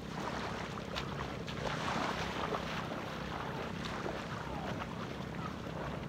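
Steady wind noise on the microphone over the wash of waves on the shore.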